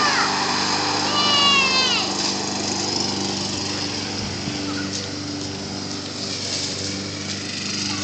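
Small gasoline lawn mower engine running steadily on a remote-controlled mower as it drives across the lawn. A child's voice calls out briefly, falling in pitch, about a second in.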